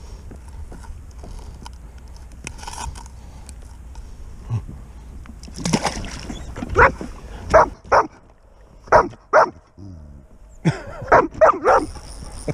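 A dog giving a quick run of short, high barks and yips, starting a little before halfway and coming in clusters of two to four.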